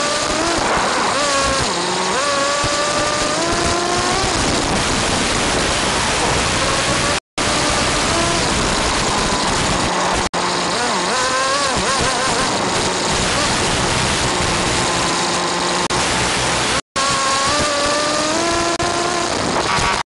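Small nitro RC car engine revving up and down in high-pitched rising and falling sweeps, buried in heavy hiss from the wireless camera's static. The audio drops out completely for an instant about four times.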